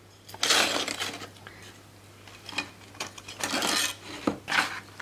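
Objects being handled and rummaged in an open case: several short bursts of rustling and light clatter, the longest near the start.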